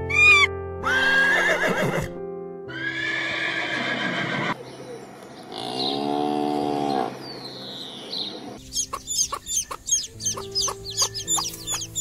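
Background music under a series of farm-animal calls: two drawn-out calls with falling, wavering pitch in the first half, a cow mooing around the middle, and rapid chicken clucking in the last few seconds.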